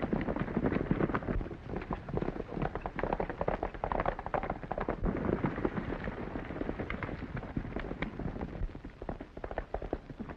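Hoofbeats of several horses galloping, a dense rapid clatter of hooves on dirt that thins and grows quieter near the end.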